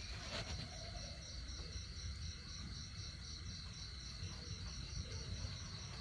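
Insects trilling steadily in a high-pitched, evenly pulsing chorus over a low rumble, with a single brief click about half a second in.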